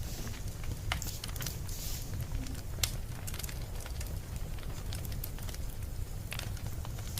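Wood fire crackling: irregular sharp pops and snaps over a steady low rumble, the loudest pop a little under three seconds in.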